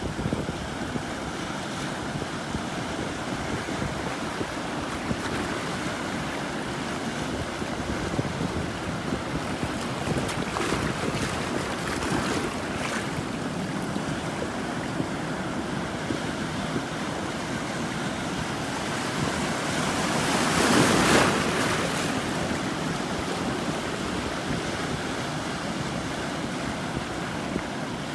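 Sea surf washing and breaking over shallow rocky water, a steady rush with wind buffeting the microphone; one wave swells louder about three quarters of the way through.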